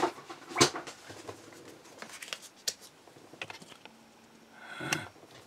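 Handling of a paper waterslide transfer sheet as it is taken out and laid down on a mat: two sharp knocks in the first second, then a run of small clicks and rustles.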